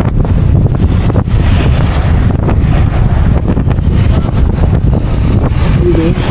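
Wind buffeting the microphone of a moving motorcycle, a loud, steady rush.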